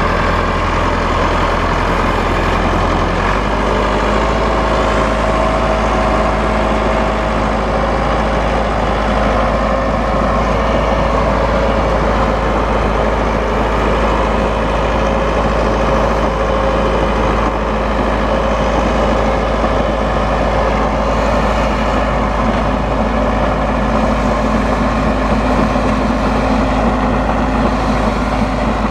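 Massey Ferguson 375 tractor's diesel engine running steadily while driving a round baler. The engine note shifts about three seconds in, and a steady whine joins it soon after.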